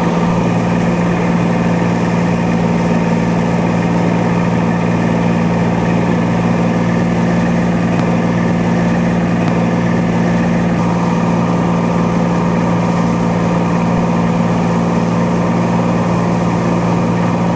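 Cessna 182T's six-cylinder Lycoming engine and propeller droning steadily, heard from inside the cockpit on final approach.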